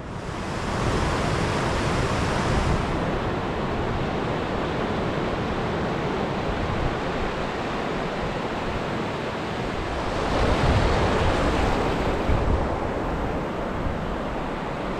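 Sea surf washing in over a flat sandy beach, a steady rush of breaking foam that swells louder about a second in and again around ten seconds in.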